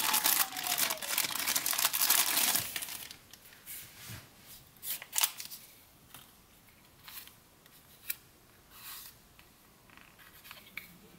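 Clear plastic packaging bag crinkling loudly as a small USB wall charger is pulled out of it, for about the first three seconds. After that come scattered light clicks and rustles as the plastic charger is handled.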